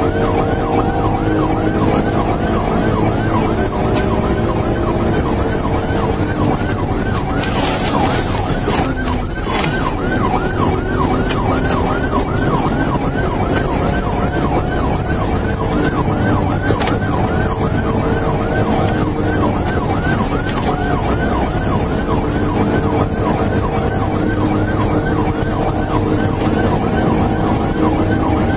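Police siren on a fast yelp, several quick rising sweeps a second repeating without a break, over the engine and road noise of a patrol car driving at speed.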